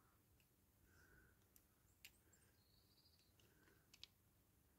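Near silence, with a few faint, short clicks from a small die-cast toy car being handled and its parts pressed together during reassembly.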